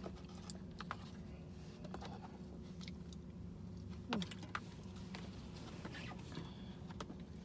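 Scattered light clicks and crackles as a red cardboard box of crispy fried chicken is handled and the chicken picked at with the fingers, over a steady low hum.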